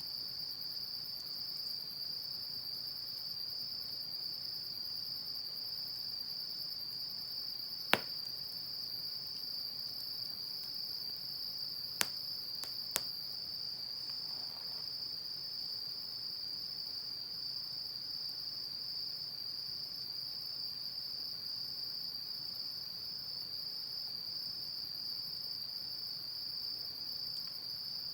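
Insects chirping in a steady, high-pitched, rapidly pulsing trill. Three sharp pops from the wood fire come through it: one about a third of the way in, then two close together near the middle.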